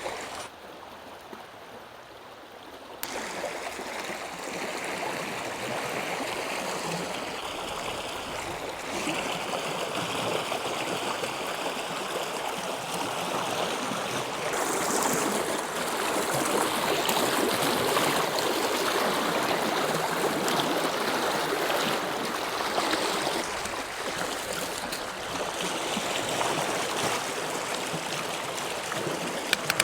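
Glacial meltwater river rushing steadily, louder from about three seconds in.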